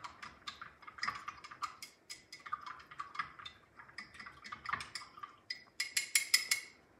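Chopsticks clinking and ticking against a glass measuring cup while stirring a cornstarch slurry, a rapid, uneven run of light taps that is loudest near the end.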